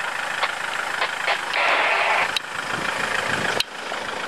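Off-road vehicle engine running, with a brief hissing stretch in the middle and two sharp knocks, one about halfway through and a louder one near the end.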